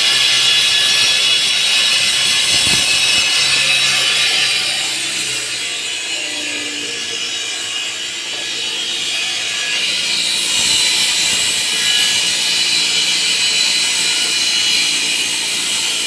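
Concrete-cutting saw blade running through a concrete slab: a loud, steady, high grinding whine that eases a little about a third of the way in and builds again after about ten seconds.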